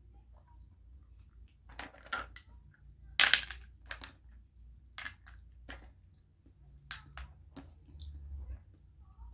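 Crayfish and snail shells clicking and cracking as they are picked from a platter and broken open by hand: about ten irregular sharp clacks, the loudest about three seconds in.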